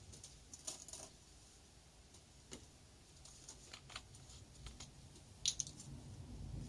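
Light, scattered clicks and taps from handling small parts while topping up a scooter's engine oil, with one sharper click about five and a half seconds in.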